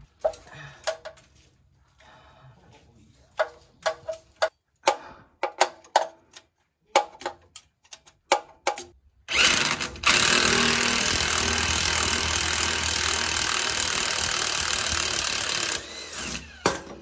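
Scattered light clicks and knocks, then about nine seconds in a loud impact wrench hammers steadily for some six seconds, driving the forcing bolt of a harmonic balancer puller on the engine's crankshaft pulley, before it stops. A short burst of the wrench comes near the end.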